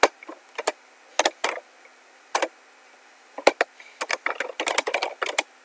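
Laptop keyboard keystrokes picked up by the laptop's own microphone: a few separate key clicks at first, then a rapid run of typing from about three and a half seconds in.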